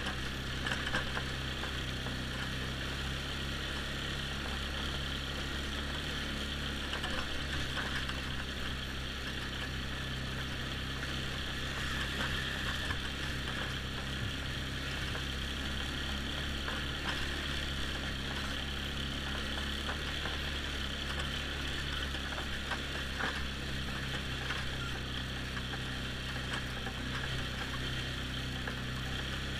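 Polaris X2 ATV engine running at a steady, unchanging throttle, heard from the rider's helmet camera, with a few faint knocks along the way.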